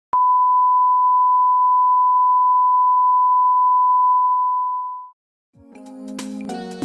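A steady, pure line-up test tone of the kind played with colour bars. It holds for about five seconds and fades out. After a brief silence, music with several instruments begins near the end.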